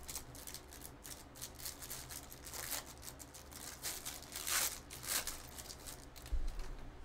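Clear plastic wrapper of a sports card pack crinkling and tearing as it is peeled open by hand, in crackly bursts that are strongest midway through. A dull thump comes near the end.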